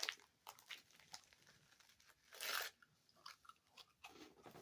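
Person biting into and chewing a crisp wafer: scattered faint crunches, with one louder crunch about halfway through.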